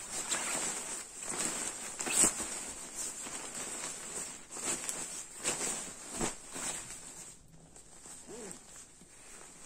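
Nylon shell fabric of a goose-down sleeping bag rustling and swishing in irregular bursts as it is handled and folded, with a sharp click about two seconds in. It grows quieter about seven seconds in.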